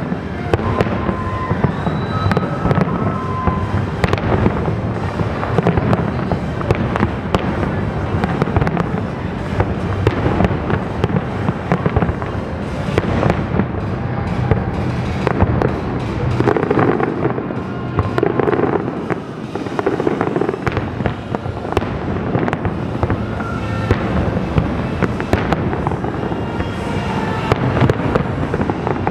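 A large aerial fireworks display goes off in a dense, continuous barrage: many bangs and crackles overlap with no break.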